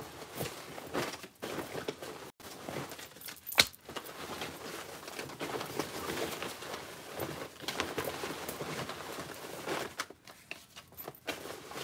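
Folded paper slips rustling and crinkling as hands rummage through them in a cloth storage basket, with a sharper crackle about three and a half seconds in.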